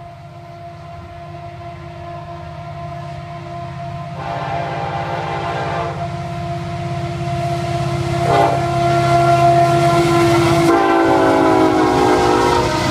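FEC diesel locomotives approaching and sounding the horn for a grade crossing: long blasts, a short blast about eight seconds in, then a loud long blast near the end. Under it the locomotives' engine rumble grows louder as the train nears.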